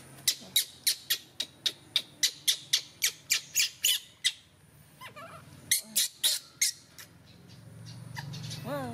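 A bird chirping: a rapid run of sharp, short chips, about three or four a second, breaks off about four seconds in and comes back briefly a couple of seconds later. Near the end a short wavering call sounds over a low hum that swells.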